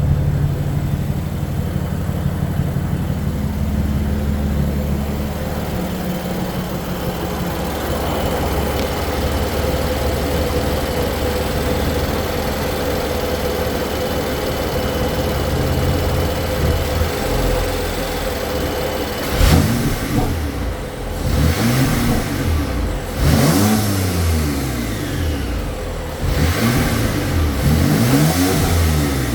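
BMW M4 engine idling steadily with a whine over it, then revved in repeated blips from about two-thirds of the way in, pitch sweeping up and down. The owner takes a sound from the turbocharging to be abnormal.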